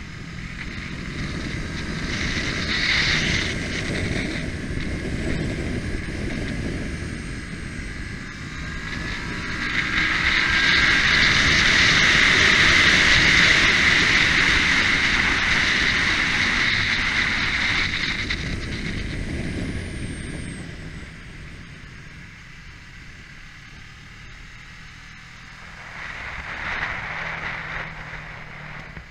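Kawasaki Ninja parallel-twin engine running hard on track, heard from a camera mounted on the bike, with heavy wind rush over the microphone. The rush swells to its loudest about a third of the way in, as the bike runs at speed down a straight, and dies away over the last third as the engine note drops.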